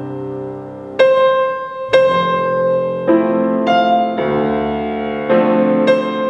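Petrof grand piano played solo in a slow improvisation: a succession of chords, a new one struck roughly every second and each left to ring into the next.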